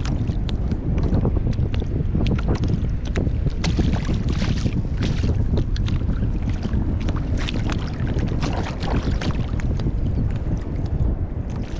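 Wind buffeting the microphone in a steady low rumble, with water slapping and splashing against a kayak's hull in many short, irregular splashes.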